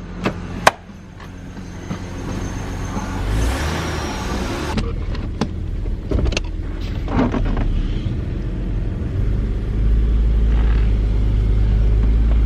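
Holden VS Commodore's 3.8-litre Ecotec V6 running with a freshly fitted water pump while being given a rev. It grows louder over several seconds and holds a steady, louder running sound near the end. A couple of sharp clicks come just after the start.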